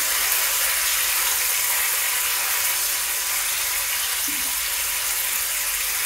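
Paneer cubes frying in oil in a pan, a steady sizzle, while a metal spoon gently stirs them.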